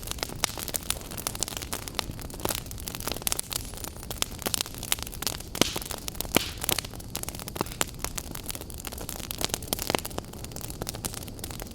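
Fire burning: a steady rushing hiss with frequent irregular crackles and sharp pops, a few of them louder near the middle.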